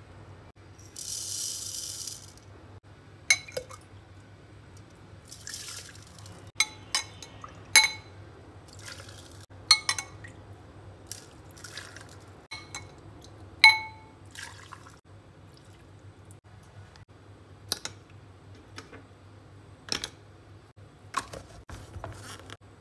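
Sugar poured in a short hiss into a plastic blender cup, followed by a run of separate sharp clinks and knocks, some ringing, as ice cubes and a metal ladle touch the cup, with a little water poured in.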